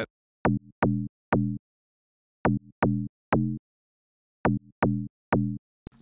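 A Serum slap house mid-bass patch playing short notes in a three-note figure, repeated three times. Each note starts with a sharp click, the 'knock' from a fast pitch envelope on the master tune, and dies away quickly.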